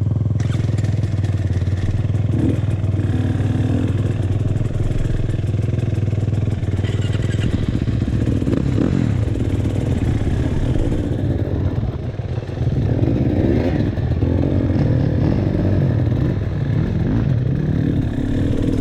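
KTM 300 TPI two-stroke dirt bike engine running, steady at first, then rising and falling in pitch with the throttle from about seven seconds in, with a brief dip around twelve seconds.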